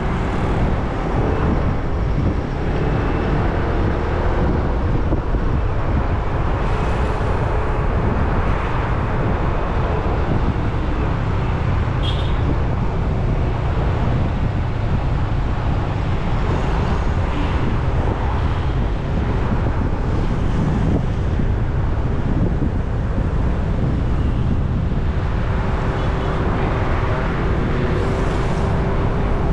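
Scooter being ridden: a steady wind rush over the action camera's microphone, with the scooter's small engine running underneath at a fairly even pace.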